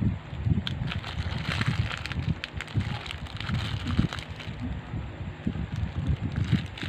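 Plastic poly mailer bag crinkling and rustling as hands turn and squeeze it, with irregular low thumps of handling.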